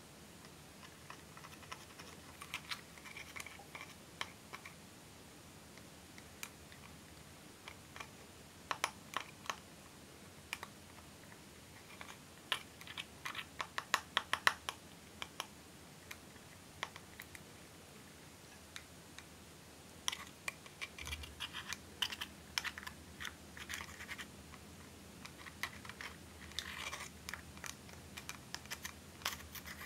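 Pointed tip of small metal scissors scraping and crumbling pressed pink powder in a makeup compact: irregular runs of fine scratchy ticks, busiest about halfway through and again in the last third.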